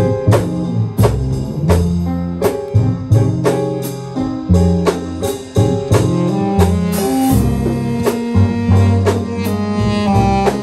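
Youth jazz big band playing: saxophones and brass, piano, hollow-body electric guitar and upright bass over a drum kit keeping time.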